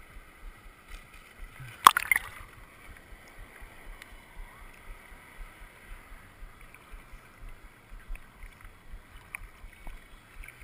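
Small sea waves lapping and sloshing right at a camera held at the waterline, with soft irregular bumps of water and one sharp slap of water about two seconds in.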